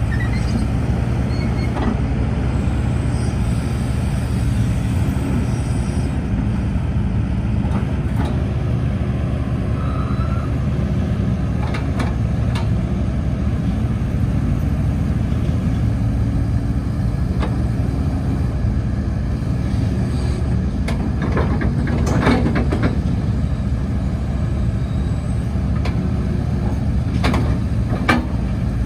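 2015 Hitachi ZX130-5N excavator's diesel engine running steadily under digging load, with occasional clanks and knocks from the bucket, grouped about three-quarters of the way through and again near the end.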